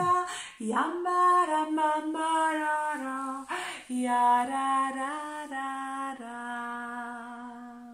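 A woman singing a slow melody on her own, holding steady notes with a short upward slide about a second in, and ending on a long held note that fades away.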